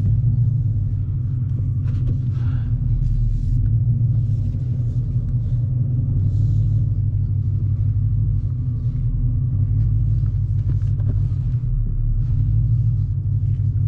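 Dodge Challenger R/T Scat Pack's 6.4-litre 392 HEMI V8 running at low speed with a steady low exhaust rumble and no revving.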